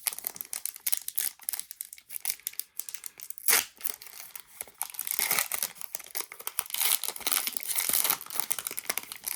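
A trading card pack wrapper being torn open and crinkled, with one louder tear about three and a half seconds in.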